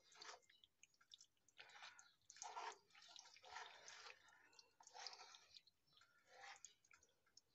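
A spoon stirring thick, cheesy macaroni and ground venison in a cast-iron skillet: faint wet squelches that repeat about once a second.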